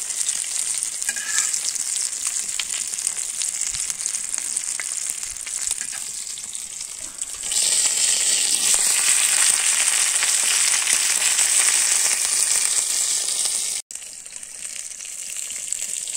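Oil sizzling steadily under a whole masala-coated fish frying on a flat iron dosa griddle. The sizzle grows louder about halfway, then cuts off suddenly near the end and goes on more quietly.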